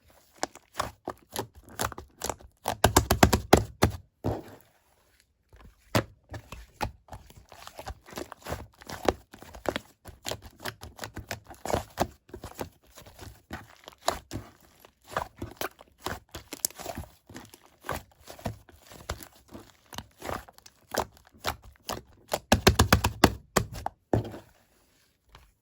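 Slime being mixed and squished by hand, giving quick wet clicks and small air-bubble pops, with two spells of fast crackling, one a few seconds in and one near the end.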